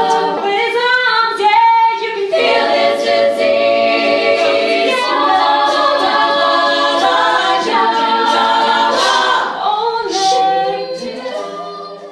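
All-female a cappella group singing in close harmony, several voices moving through sustained chords, with the sound starting to fade out near the end.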